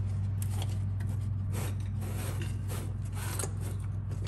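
Light clicks and scrapes of a plastic motor-oil jug being handled while oil is poured into a new oil filter, over a steady low hum.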